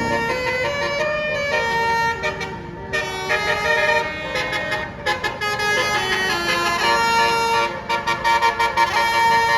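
Bus's 'telolet' Basuri multi-tone musical horn playing a quick tune, one pitched note after another, with brief pauses between phrases.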